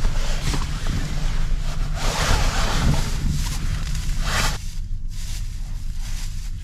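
Wind buffeting the microphone with a steady low rumble, with gusts of rushing hiss about two seconds in and again just after four seconds.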